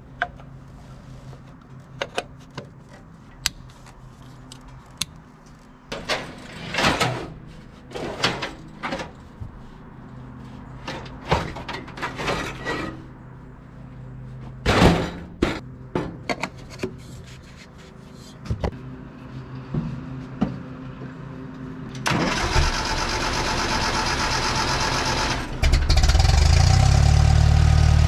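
Scattered metal clanks and knocks for about twenty seconds, then the old tractor's engine is cranked for a few seconds and catches near the end, running loudly. It now fires because its ignition points have been re-gapped.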